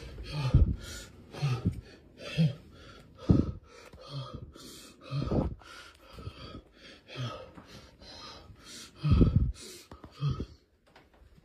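A frightened man breathing hard in quick gasps, roughly one breath a second, with a few heavier low thumps among them.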